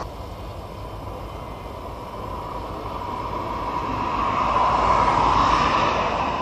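A vehicle passing close by: a steady rush of engine and tyre noise that builds to its loudest about five seconds in and then eases off.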